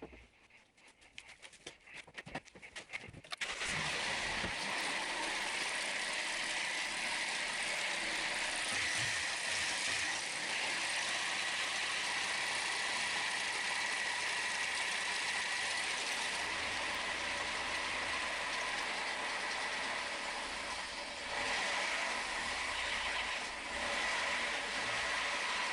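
Toyota Corolla's 1.4 VVT-i 4ZZ-FE four-cylinder engine starting up about three seconds in and then running steadily, with a steady high whine over the engine noise. A few light clicks come before it starts.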